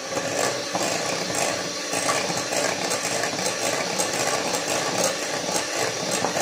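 Hand-held electric mixer running steadily, its beaters working a freshly added egg into cream cheese batter in a glass bowl.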